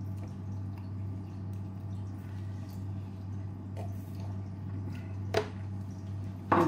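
Plastic spoon scraping and scooping soft ice cream in a paper tub and bowl, with two sharp taps of the spoon about a second apart near the end, over a steady low hum.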